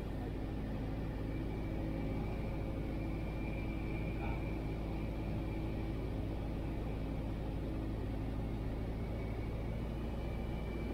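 Piper PA-22 Tri-Pacer's piston engine and propeller droning steadily, heard inside the cabin on final approach.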